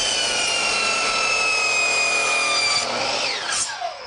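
DeWalt miter saw cutting through a board, its motor whine sinking slowly in pitch under load. About three seconds in the cutting stops and the motor winds down, the whine falling steeply as the blade spins down.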